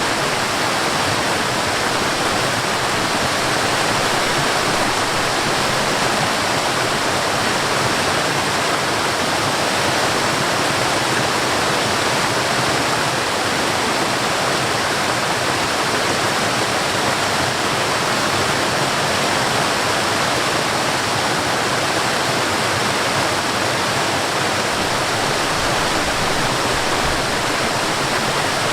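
Water flowing over a small waterfall and along a stream, an even, steady rushing with no breaks.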